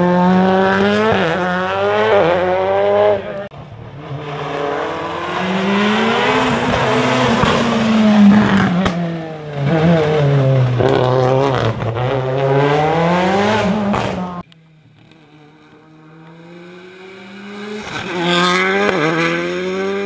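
Skoda Fabia WRC rally car's turbocharged four-cylinder engine at full throttle, its pitch climbing and dropping again and again through gear changes and lifts. A little over halfway it cuts to a fainter engine that grows steadily louder as the car approaches.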